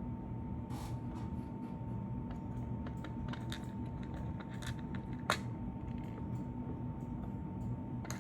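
Scattered light clicks and taps from small objects being handled, with one sharper click about five seconds in, over a steady low hum and a faint high steady tone.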